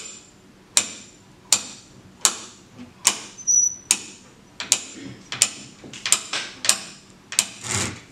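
Hand-cranked ratchet winch clicking once per turn of the crank, eleven sharp clicks about three-quarters of a second apart as it builds tension, with a short squeak about halfway. Near the end, a brief scraping rush as the sandpaper-bottomed brick slips along the sandpaper board: the simulated fault slip.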